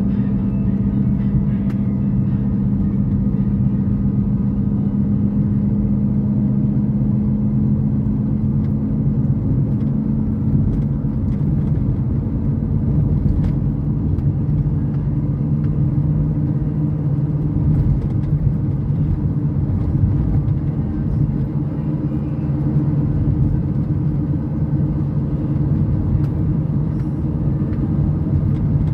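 Car engine and road noise heard from inside the cabin while driving: a steady low drone with a hum that settles slightly lower in pitch about halfway through.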